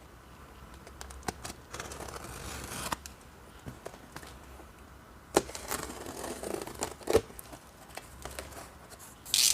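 Cardboard box and packaging being opened by hand: rustling, tearing and crinkling with scattered small clicks and knocks, and a brief louder rustle near the end.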